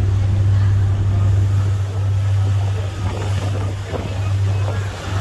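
Tour boat's engine running with a steady low drone, under wind and water noise.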